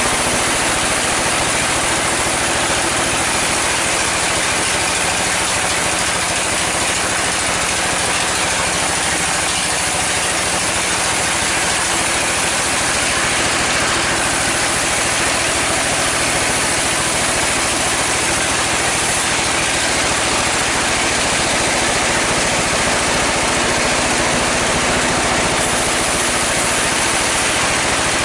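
Sawmill saw and its engine running steadily as a mahogany log is fed through by hand. A constant loud machine drone with a steady hum underneath, unchanged throughout.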